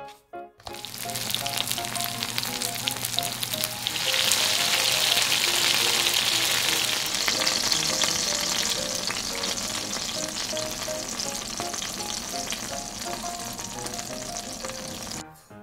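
Potato-starch-coated pork pieces frying in hot oil: a dense, crackling sizzle that swells about four seconds in, then eases off slightly.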